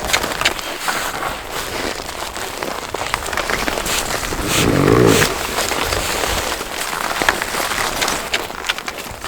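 Reindeer moving over snow: a steady crunching crackle of snow with many short clicks and scuffs. About halfway through there is one louder, lower sound lasting under a second.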